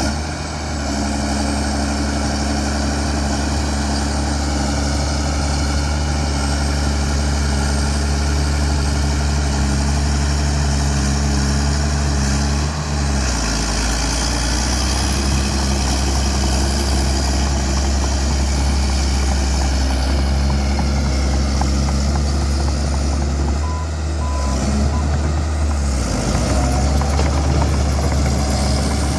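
Bulldozer's diesel engine running steadily with a deep hum, its engine speed shifting about halfway through and again near the end.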